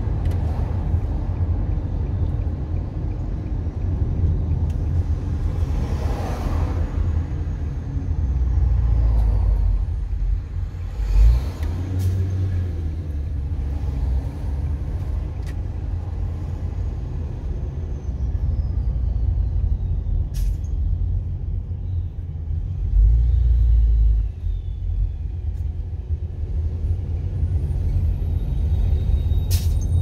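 Road noise of a car driving in city traffic, heard from inside the cabin: a steady low rumble of engine and tyres. A short thump comes about a third of the way in, and the rumble swells briefly twice.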